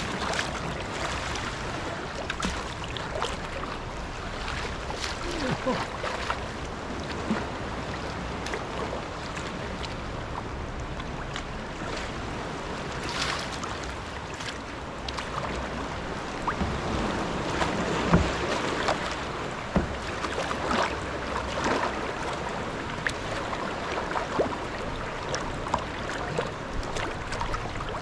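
Kayak paddle strokes splashing and water sloshing against the hull of a Stellar S18 G2 sea kayak under way, in irregular splashes, with some wind on the microphone.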